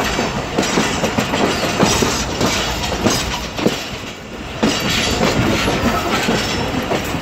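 Passenger train wheels clattering over rail joints and a run of points and crossings: a dense, irregular clickety-clack of steel wheels on steel rail, easing briefly about four seconds in.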